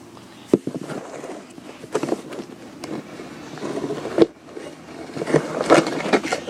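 Slime being mixed and squished by hand, giving uneven sticky clicks, pops and crackles. The sharpest pops come about half a second in, about four seconds in, and in a cluster near the end.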